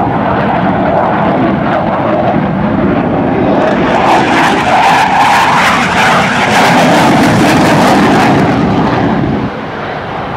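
Jet noise from a US Navy F/A-18 Hornet's two engines as it flies past in a banking turn: a loud, steady rush that grows louder and harsher, with a crackle, from about four seconds in, then falls off abruptly near the end.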